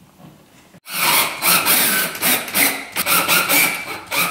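Cordless drill boring a hole into a wall, coming in suddenly about a second in and grinding in rapid, uneven surges.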